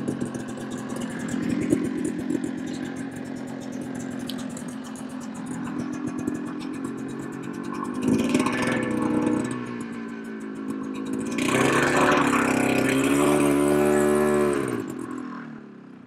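Snowmobile engine running cold just after a pull start, idling unevenly. It is revved briefly about eight seconds in and again for about three seconds near the end, and the pitch rises with each rev. Then it drops off sharply.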